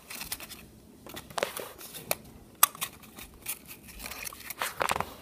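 Paper crinkling and rustling, with scattered small clicks and taps, as a hand handles a small paper pizza-box prop and plastic toy figures.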